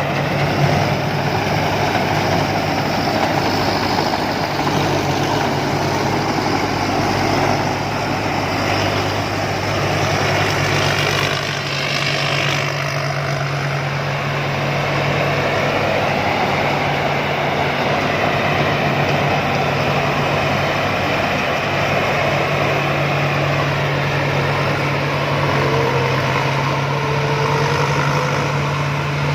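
Rice combine harvester running: a steady, loud engine drone with machinery noise over it, the low tone shifting briefly about twelve seconds in.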